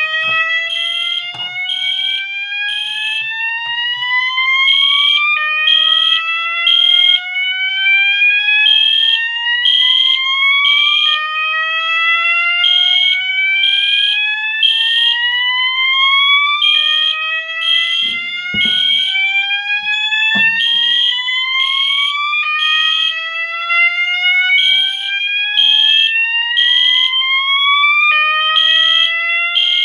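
Two fire alarm sounders going off together. A System Sensor SS-24 sounder gives a slow whoop, a tone rising steadily in pitch and starting over about every five and a half seconds; it is stuck on that tone because its tone-select jumper is missing. Over it, an EST Genesis horn beeps a high note in repeating groups of three.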